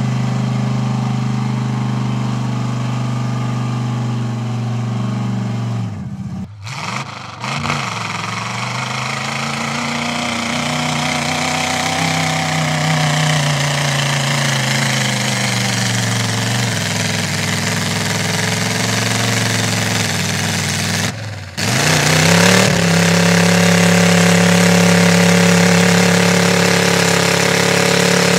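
Mud-bog pickup truck engines running, their pitch rising and falling as they work through the mud pit. Twice the sound dips sharply, about a quarter of the way in and again about three quarters in, and comes back with a rising rev.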